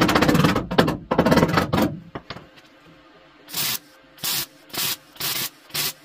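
MIG welder stitch-welding thin car-body sheet steel: a sputtering arc crackle runs almost continuously for the first two seconds with brief breaks, then comes as five short bursts about half a second apart as separate stitches are laid.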